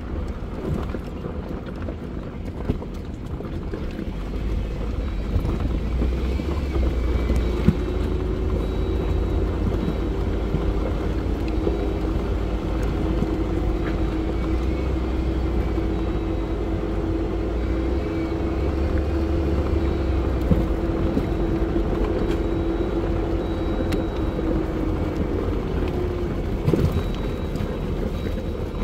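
Jeep engine and drivetrain running as it crawls over a rough gravel trail, a steady low rumble and hum with wind buffeting the microphone, and a few short knocks from the rocky ground.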